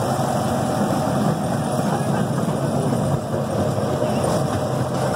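Chance C.P. Huntington miniature park train running along its track: a steady engine hum with a continuous rumble of the cars, heard from an open passenger car.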